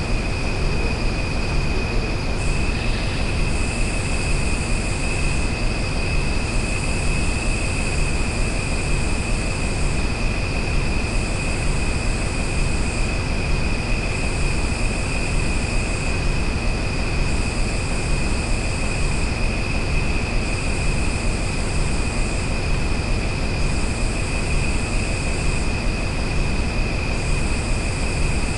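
Outdoor nature ambience: a steady rushing noise with a continuous high-pitched tone over it, and a higher hiss that comes and goes about every two seconds.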